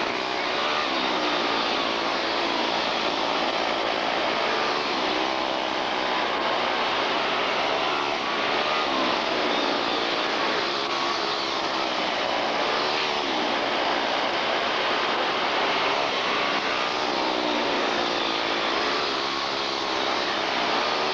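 Several quarter midget race cars' small engines running hard on a dirt oval, their pitch rising and falling again and again as the cars pass and go through the turns.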